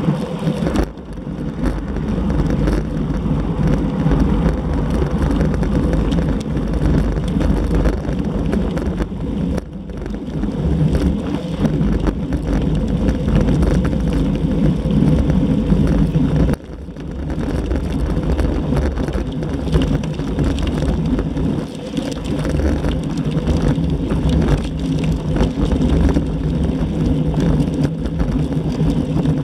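Wind rushing over a bike-mounted action camera's microphone while riding a road bicycle at speed: a loud, steady, low rumble. The level drops sharply three times and builds back up each time.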